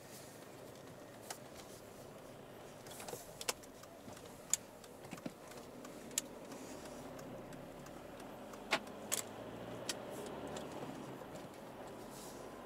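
Quiet in-cabin running noise of an Alfa Romeo 159's 1.9 JTDM four-cylinder turbodiesel on the move, swelling a little about two-thirds in. About ten sharp clicks and light rattles are scattered irregularly over the top.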